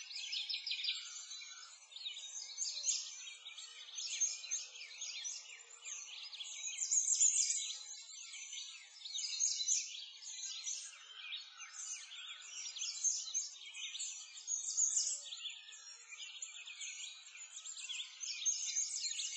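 Many small birds chirping and twittering at once, a dense, unbroken high-pitched chorus.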